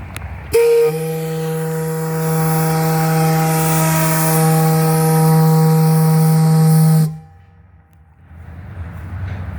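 Steam whistle blowing one long blast of about six and a half seconds: a low, steady chord with loud steam hiss over it. It opens with a brief higher note and cuts off sharply.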